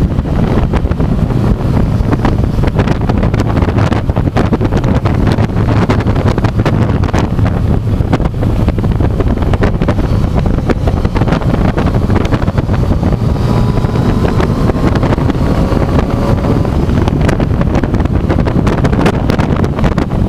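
Motorcycle riding at road speed, heard through a bike-mounted action camera: steady, loud wind buffeting on the microphone over the engine running. A faint rising engine note comes in about two-thirds of the way through.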